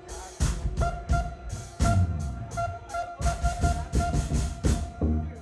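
Live funk-jazz band playing: drum kit hits in a steady groove over electric bass, with a held high note from a keyboard or horn riding on top.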